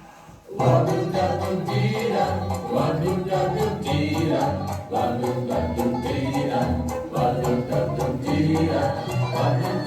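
Music starts suddenly about half a second in, with a bass line and a steady beat.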